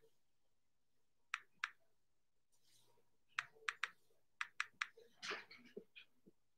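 Faint, irregular taps typing a passcode on an iPad Pro's on-screen keyboard: two single taps about a second and a half in, then a quicker run of taps from about three and a half to six seconds in.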